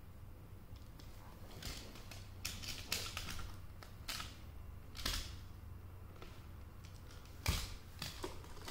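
Toy building pieces knocking and clicking together as they are handled, in irregular sharp clacks, the loudest about seven and a half seconds in.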